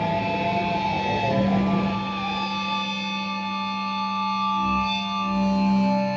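Live band playing a slow, droning passage: electric guitar notes held and wavering through effects over a steady low drone, with no drum hits.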